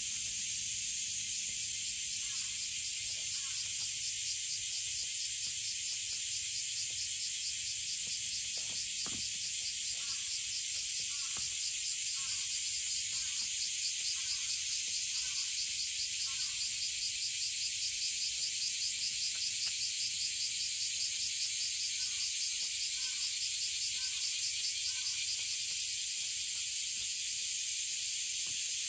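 Steady, dense chorus of summer insects, high-pitched with a fast pulsing shimmer, typical of cicadas on a midsummer morning. Faint short chirps and ticks come and go, mostly in the first half and again near the end.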